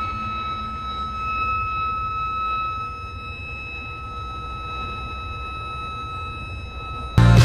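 Steady alarm tone from a ship's generator switchboard, sounding over the low rumble of engine-room machinery: the alarm for the auxiliary generator's reverse power trip, with its breaker opened. Loud music cuts in abruptly near the end.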